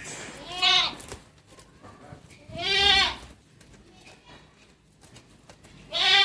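Goat bleating three times, each a short quavering call.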